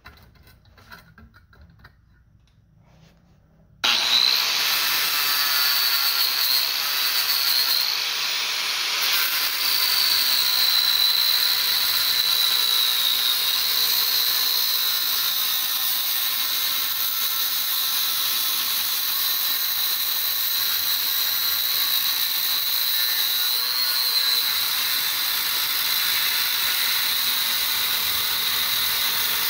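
Angle grinder with a cutoff wheel cutting through the copper bars of a large motor armature. It starts abruptly about four seconds in and runs steadily, with a high whine whose pitch wavers slightly.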